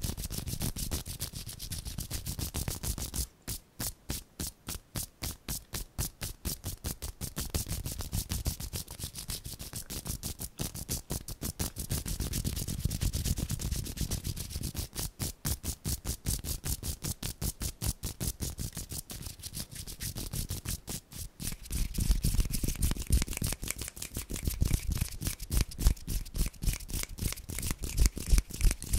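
Bare palms rubbing rapidly back and forth against each other right in front of the microphone, a quick even swishing at several strokes a second. It grows louder, with a low rumble, in the last several seconds.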